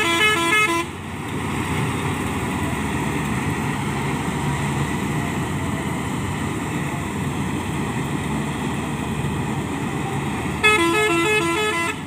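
Malkit combine harvester running steadily while it cuts rice. A melodic multi-note horn tune sounds briefly at the start and again for the last second or so.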